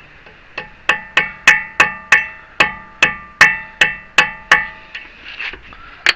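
A hammer driving a rebar chisel against the staked collar of a Honda Fit's axle nut to unstake it: about a dozen sharp, ringing metal strikes at roughly three a second, followed by a few fainter knocks near the end.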